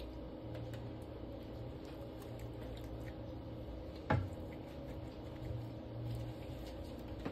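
Faint wet handling sounds as a raw turkey is seasoned with marinade in a roasting pan, over a steady low hum. One sharp knock about four seconds in.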